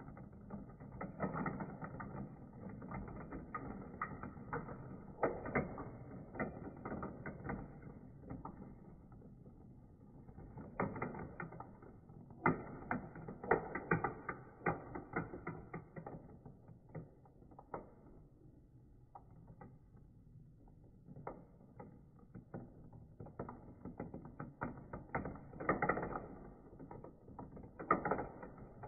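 Marbles rattling and clicking around a plastic marble-run funnel and down its tracks, slowed down and deepened in slow motion. The clatter comes in waves and thins out for a while past the middle.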